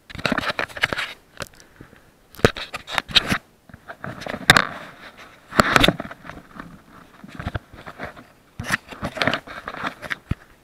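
Hands handling a chest-mounted SJ4000 action camera, rubbing and scraping on its body and microphone. The sound comes in irregular bursts of crackling and scraping, with a few sharp knocks.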